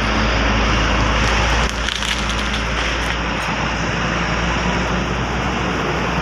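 Steady, loud rumbling noise with a low engine hum underneath, typical of heavy traffic on the road; it drops a little about two seconds in.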